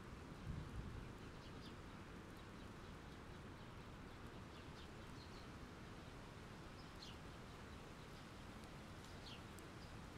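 Faint steady rain, with the low tail of a thunder rumble in the first second. Short, high bird chirps sound now and then.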